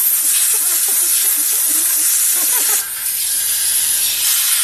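Compressed air hissing from a blow gun held into the oil passages of a Ford 460 crankshaft, blowing them out. The hiss is steady and loud, drops briefly nearly three seconds in, then carries on.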